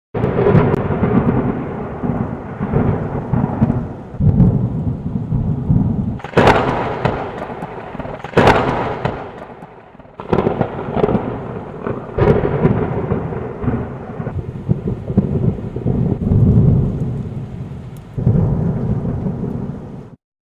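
Thunder rolling and rumbling in repeated swells, with two sharp cracks about six and eight seconds in. The sound starts abruptly and cuts off just before the end.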